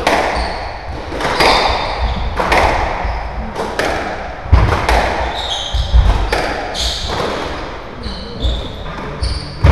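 Squash rally: sharp racket strikes and ball impacts on the walls about once a second, echoing around a large hall, with brief high squeaks of court shoes on the wooden floor between hits.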